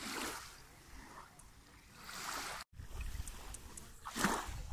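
Small waves lapping on a sandy shore: a soft wash of water about every two seconds. A low rumble runs underneath in the second half.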